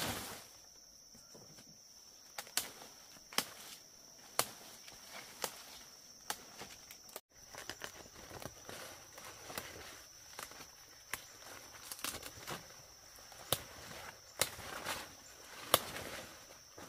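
Scattered sharp clicks and snaps, roughly one a second at uneven spacing, over a steady high-pitched insect drone.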